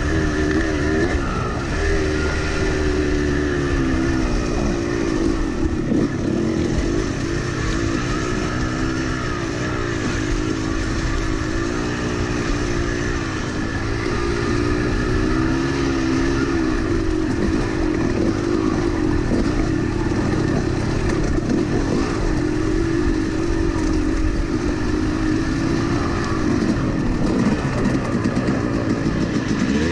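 Yamaha YZ250 two-stroke dirt bike engine running under way, its revs repeatedly rising and falling with the throttle.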